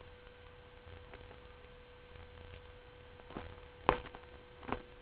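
Quiet room with a faint steady hum, broken later on by a few short soft clicks and crinkles from a clear plastic zippered storage bag being handled.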